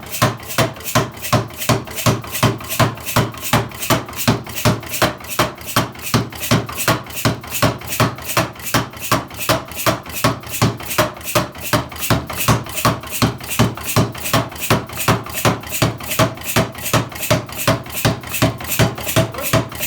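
Hartenfels pneumatic power hammer running steadily, its ram striking in an even, unbroken rhythm of between two and three blows a second.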